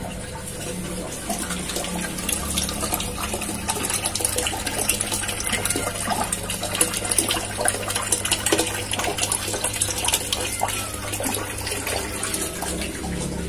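Water running and splashing into an aquarium tank: a steady flow with many small splashes.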